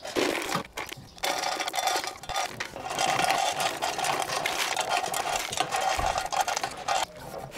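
Wood pellets pouring out of the hopper clean-out chute of a Traeger pellet grill into a plastic bucket: a dense, steady rattle that starts about a second in, after a short clatter, and stops abruptly near the end. The hopper is being emptied.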